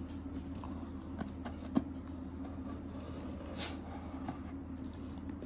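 Scissors snipping and scraping at the tape of a cardboard box: a few sharp clicks about a second and a half in, then a short scrape a little past halfway, over a steady low hum.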